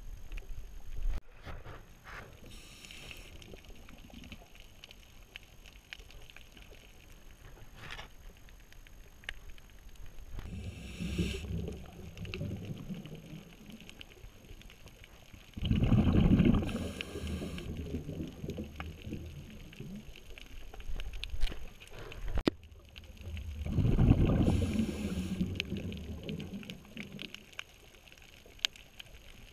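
Scuba diver breathing through a regulator underwater: short pulsing regulator hisses and bursts of exhaled bubbles rumbling past the camera, several seconds apart, three loud breaths in all.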